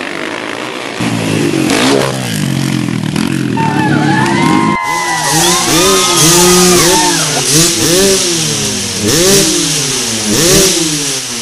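Motocross dirt bike engines revving and accelerating. About five seconds in the sound cuts abruptly to several bikes at once, their engine notes rising and falling over and over and overlapping.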